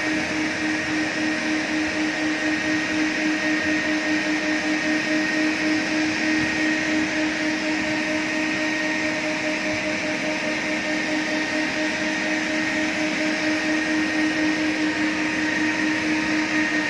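A rotary carpet-scrubbing machine and a wet vacuum running together, giving a steady motor hum and whine over a rushing noise, with a slight regular pulse in level.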